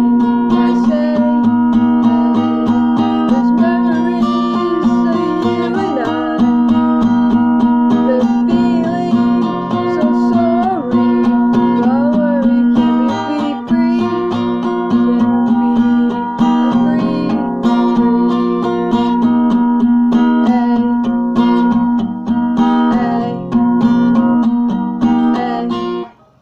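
Acoustic guitar strummed steadily with a woman singing along over it. The music stops abruptly near the end.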